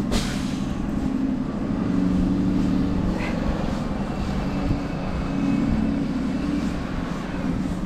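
Steady low rumble of a vehicle running close by in city street noise, with a faint high whine from about four seconds in.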